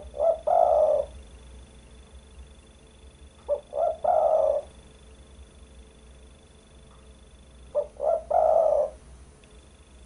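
Spotted dove cooing: three phrases about four seconds apart, each two short coos followed by a longer, louder coo.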